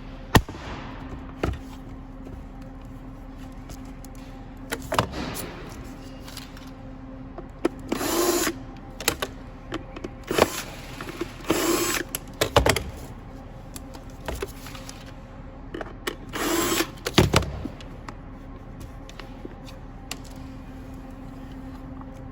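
A power drill-driver running in about five short bursts, backing screws out of a BMW blower motor's plastic outer housing, with clicks and knocks of the housing parts being handled between bursts.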